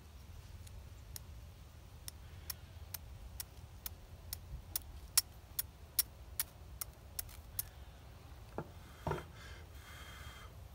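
Flint and steel striking: a steel striker scraped down the edge of a flint again and again, sharp clicks at about two to three a second, throwing sparks onto a piece of charred denim char cloth to light it. The strikes stop a little past halfway, and then come a couple of soft handling sounds.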